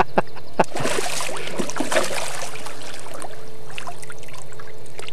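Water splashing in a shallow reservoir margin as a released carp kicks free of the angler's hands and swims off, the splashing strongest about a second in and then dying away. A few sharp knocks come just before it.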